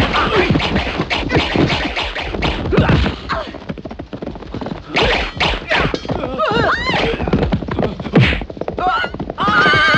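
Kung fu fight sound effects: a rapid, dense run of punch and kick impacts, with a few short wavering cries in the second half.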